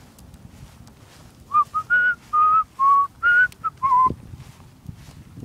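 A person whistling a short tune: about eight clear notes of shifting pitch, starting about a second and a half in and ending about a second before the end.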